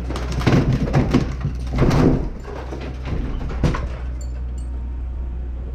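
Demolition noise: wood and masonry creaking, scraping and grinding in several loud bursts during the first two seconds and once more just before four seconds, over a steady low engine drone.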